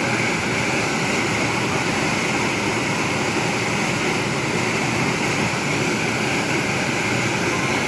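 Waterfall rushing: a steady, even noise of falling water that does not change.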